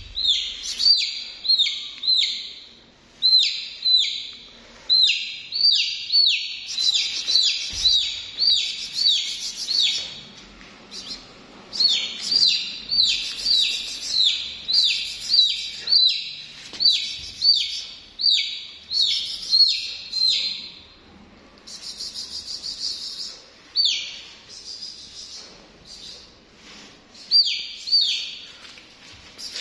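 A chick peeping loudly over and over, each peep a sharp falling note, in runs of two or three a second with short breaks. It is the distress call of a chick held in the hand.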